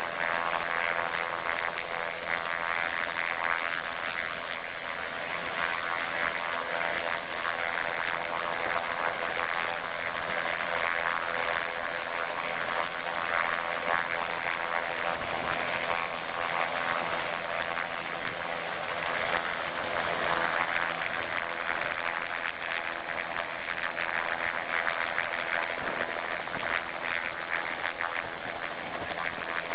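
Aircraft engines running steadily, a drone with several steady pitched tones and no change in pitch.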